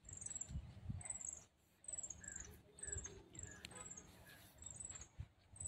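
Faint, high-pitched chirping from a small animal in the dry scrub. Each chirp is a short falling note, and they repeat about twice a second.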